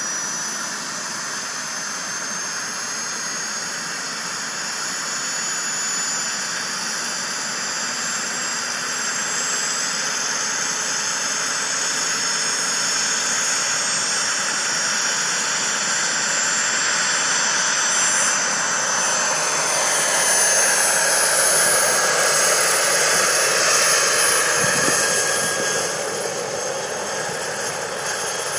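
Large radio-controlled scale model helicopter of a Lama spooling up: a high whine that slowly rises in pitch over steady rotor and motor noise, growing louder as the model lifts off into a low hover near the end.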